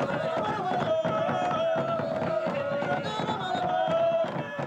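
Chanting voices holding long high notes over quick, repeated drumbeats.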